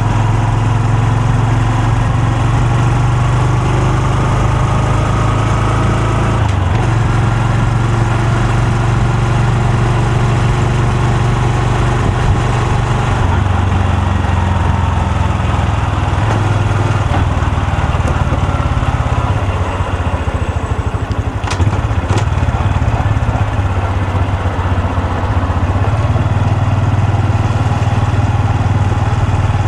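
Honda Super Cub C125's air-cooled single-cylinder engine and exhaust running under way, the note shifting about six seconds in. Around twenty seconds in it eases off and drops in level, with a sharp click, then picks up again.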